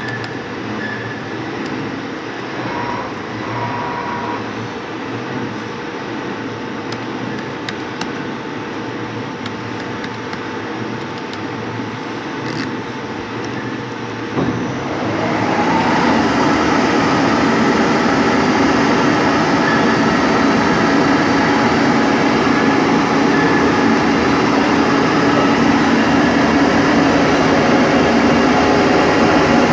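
CNC lathe running with a steady mechanical whirr and hum. About halfway through there is a short knock and the running noise grows louder and fuller, staying at that level to the end.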